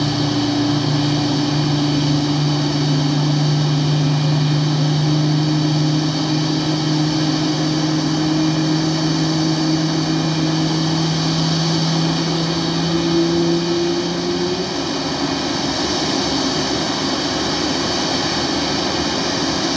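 Boeing 737 MAX 8's CFM LEAP-1B jet engines running at idle, a steady whine of several high tones over a loud rush. A lower humming tone under it creeps slightly upward and cuts off about fifteen seconds in.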